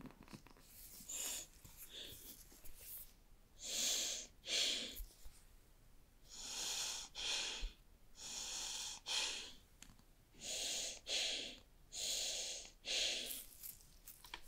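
AirPods Max ear cups sliding in and out of their soft Smart Case, the case material rubbing against the headphones and the nitrile gloves in a run of short paired swishes, with a few light clicks of handling before them.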